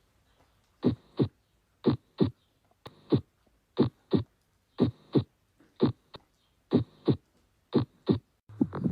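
Recorded heart sounds: a steady lub-dub, the first and second heart sounds coming in close pairs about once a second, with a few fainter extra sounds between some beats. Near the end a different, busier sound begins.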